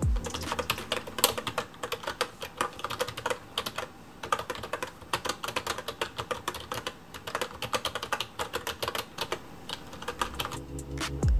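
Typing on a YUNZII ACTTO B303 typewriter-style keyboard with round keycaps over membrane switches: a rapid run of key clicks, with a brief pause about four seconds in and stopping near the end.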